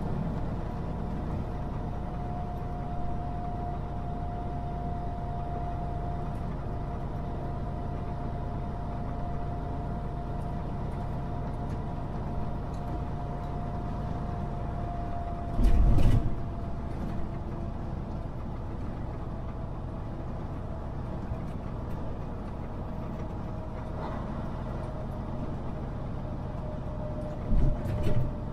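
Semi truck driving, heard from inside the cab: steady engine and road rumble with a faint whine that slowly drops in pitch. Two loud thumps break through, one about halfway through and one near the end.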